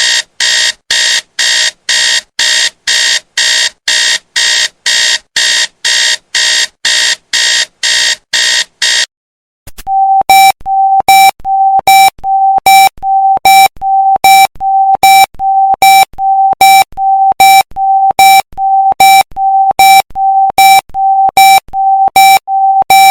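Two alarm-clock sounds one after the other. First a high, rapidly pulsing ring of about two and a half pulses a second, which stops about nine seconds in. After a short break comes an electronic beep on one steady tone, repeating about twice a second, each beep starting with a click.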